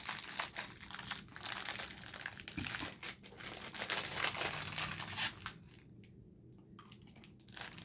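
Plastic candy wrapper crinkling and rustling as it is handled and torn open, with dense crackles that die away about five and a half seconds in.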